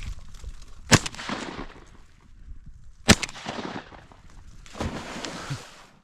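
Two shotgun blasts about two seconds apart, each with a trailing echo, fired at an incoming teal; the second brings the bird down. A softer, rougher noise follows near the end.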